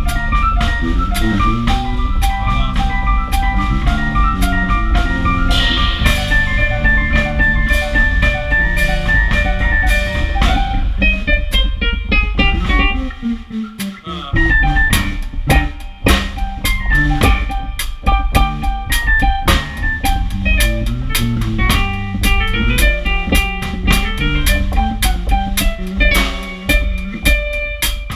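Live band music with a drum kit, guitar and keyboard playing a bluesy groove. About halfway through the bass and drums drop out for a moment, then the full band comes back in.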